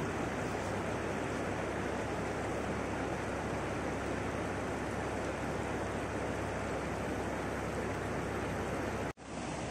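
Steady rush of a river flowing over stones, cutting out for a moment about nine seconds in.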